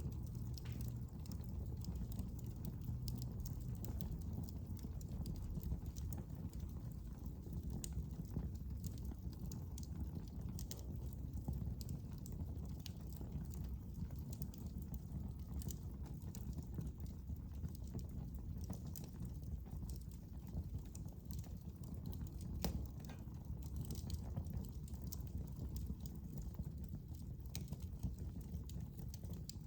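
Fire crackling in a fireplace, with irregular sharp pops and snaps over a low, steady rumble of the flames.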